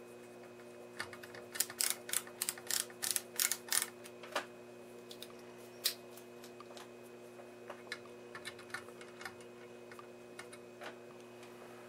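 Metal slider band of an adjustable wirewound power resistor being worked along its windings by hand: a quick run of sharp clicks and scrapes over the first few seconds, then scattered clicks. A steady low hum runs underneath.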